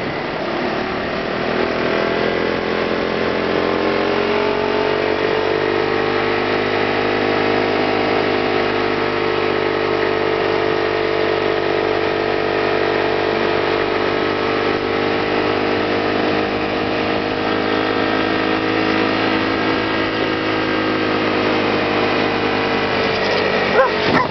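Motor scooter engine running under way, its note rising over the first few seconds and then holding steady while cruising, with wind and road noise over the microphone. A brief sharp sound near the end.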